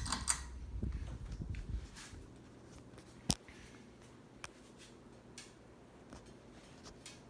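Harbor Breeze Bellhaven ceiling fan running quietly, a low rumble fading out over the first two seconds. A few light, separate clicks sound over the faint steady background, the sharpest about three seconds in.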